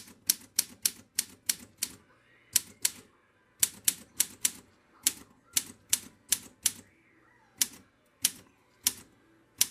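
Olympia SM3 Deluxe manual typewriter being typed on: sharp typebar strikes against the platen, about three or four a second in quick runs with short pauses between them.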